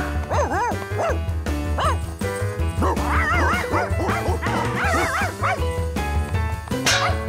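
Cartoon dogs yipping and barking over bouncy band music with a steady bass beat; the yelps are short and rise and fall in pitch, coming in a quick run around the middle.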